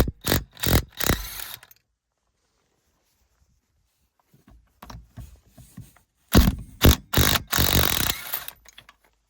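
A wrench backing off the rear shock-absorber mounting nuts, in three spells of short, loud, rattling bursts separated by pauses.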